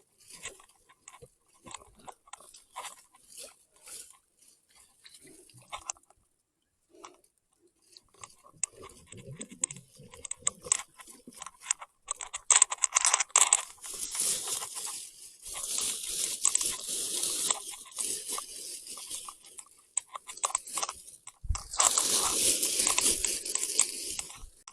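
Irregular crunching and rustling. Faint scattered clicks at first, then louder rustling in long bursts over the second half.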